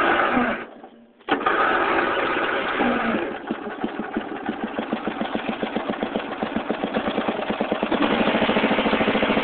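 Riding lawn mower's small engine starting: a short burst, a brief gap, then it catches and runs with an even firing beat that steadies and gets a little louder near the end.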